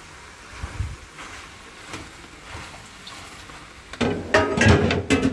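Chicken cubes being cooked and stirred into sautéing onions in a pot, with faint small clicks, then a much louder burst of noise about four seconds in that lasts just over a second.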